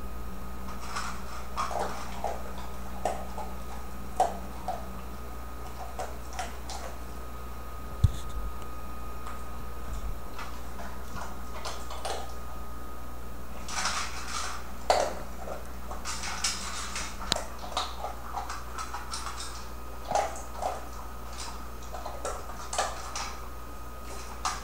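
A dog eating dog food from a metal bowl: irregular crunches and clinks against the bowl, busier in the second half.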